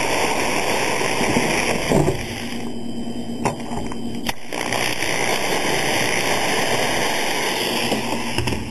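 Small electric drill running with a thin pilot bit, drilling pilot holes for the servo mounting screws. It runs in two stretches with a short break about two seconds in, and a couple of sharp knocks fall in the break.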